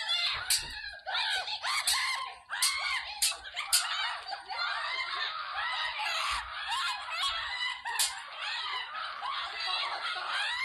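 High-pitched screaming and wailing voices of young siblings in a comedy skit, shrill and continuous, without clear words.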